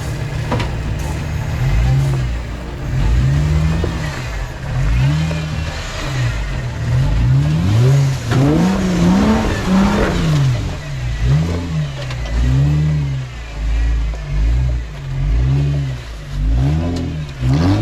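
Off-road 4x4's engine revving up and down over and over, each rev rising and falling in pitch about once a second, as it works its way over rough ground.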